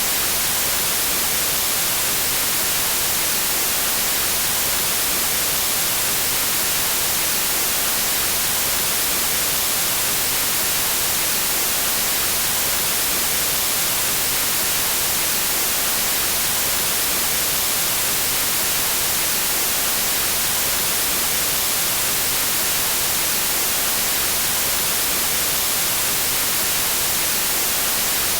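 Steady white noise: an even, unbroken hiss with no change in level, strongest in the high frequencies.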